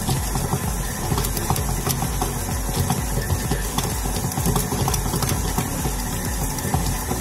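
KitchenAid stand mixer's motor running steadily as it kneads a stiff bread dough, with a steady hum and hiss.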